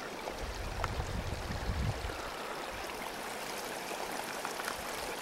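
Steady rushing of running water, with a low rumble in the first two seconds.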